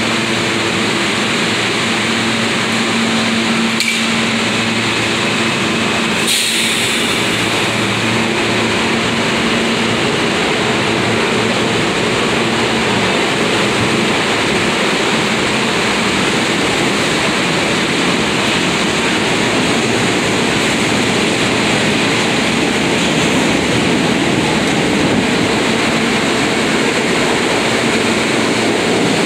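NYC subway refuse train of R42 and R32 cars running through an underground station: a steady, loud rumble of steel wheels on rail with a low motor hum. There is a sharp click about four seconds in and a brief crack a couple of seconds later.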